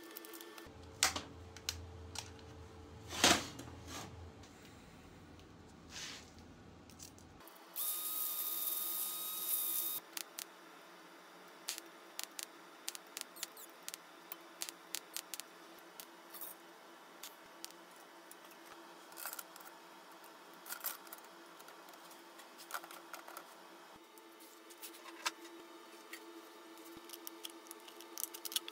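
Hand work on thin sheet-metal stove parts: scattered sharp metal clicks, clinks and knocks. About eight seconds in, a steady machine noise runs for about two seconds. Near the end come the snips of tin shears cutting stainless steel chimney pipe.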